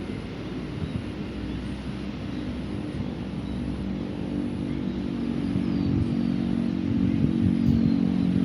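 Road traffic: a motor vehicle's engine running and growing steadily louder as it approaches.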